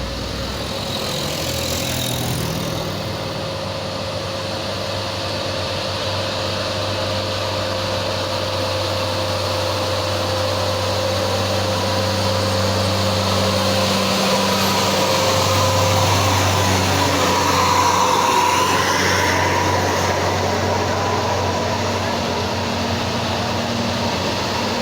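Tour buses' diesel engines labouring up a steep climb in a convoy, growing louder as one draws close. A whine rises briefly about two-thirds of the way through.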